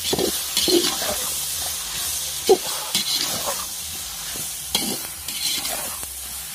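Sliced brinjal sizzling in oil in a metal pot as a metal spatula stirs it, with irregular scrapes and knocks of the spatula against the pot; the sharpest knock comes about two and a half seconds in. The brinjal is at the sauté stage, cooked well and soft.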